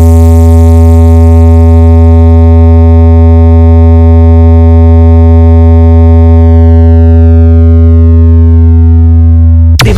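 A single very loud synthesized bass tone, a sound-check 'vibration' test note from a DJ competition track. It is held dead steady for nearly ten seconds, its upper overtones fading as it goes, and cuts off suddenly near the end.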